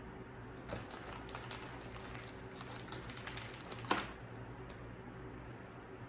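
Plastic snack bag crinkling and rustling for about three seconds as it is handled, with a sharper crackle near the end.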